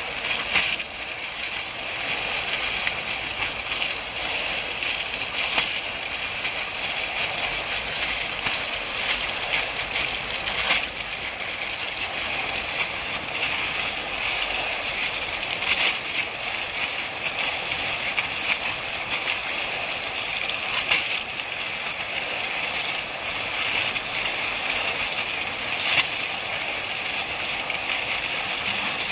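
Oase foaming jet nozzles (35-10E) running, their columns of aerated water splashing steadily as they fall back. The splashing swells briefly about every five seconds.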